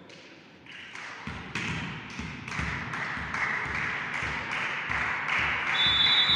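Spectators in a sports hall clapping in a steady rhythm, about three claps a second, growing louder. A referee's whistle sounds briefly near the end, the signal for the serve.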